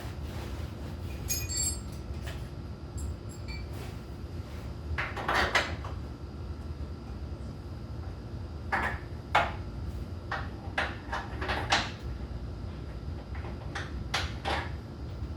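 Hand tools and metal parts clanking and knocking at irregular intervals under a truck as its fuel tank is unbolted to be dropped, over a steady low hum. There is a brief ringing metallic rattle about a second in, and a busier run of knocks in the second half.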